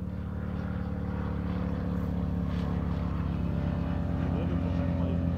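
An engine running at a steady pitch, growing gradually louder as it draws nearer.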